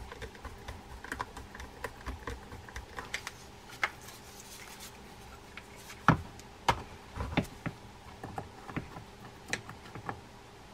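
A screwdriver turning small screws into a line-counter fishing reel's metal frame: a scatter of light clicks and ticks, with a few sharper clicks a little past the middle.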